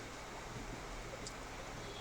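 Steady low background noise: an even hiss with a faint low hum, and one soft click about a second in.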